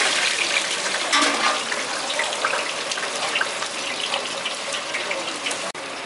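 Fish sizzling on a hot grill: a steady hiss with small crackles, cutting out for an instant near the end.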